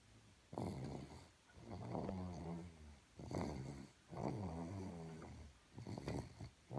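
A pet dog snoring in a steady rhythm, a rasping snore on both the in-breath and the out-breath, one full breath about every three seconds.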